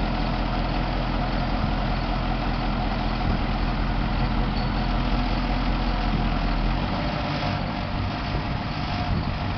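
Straight truck's engine idling steadily; its deepest low hum thins out about seven seconds in.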